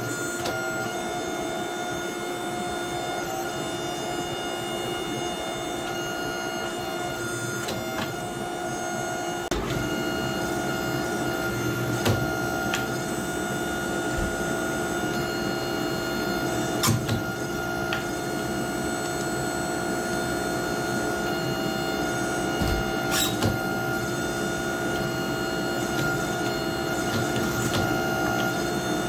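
Hydraulic forging press running with a steady whine while its punch is driven into a red-hot steel billet to punch a hatchet eye, with a few sharp knocks scattered through.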